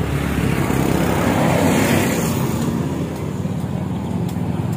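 Steady road traffic noise from passing motor vehicles, swelling slightly around the middle.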